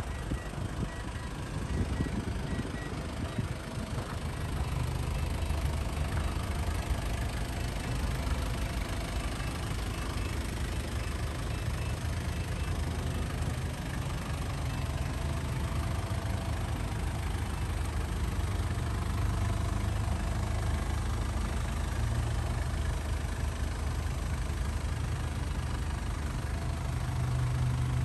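Mazda Bongo Friendee's turbo diesel engine idling steadily, with a low, even hum.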